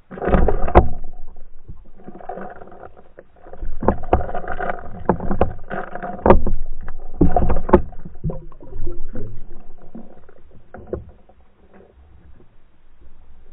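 Underwater camera rig on a fishing line jolted about as a pike strikes and shakes the lure: muffled water rushing with sharp knocks against the housing. The bursts come right at the start and again for several seconds from about three seconds in, then die away.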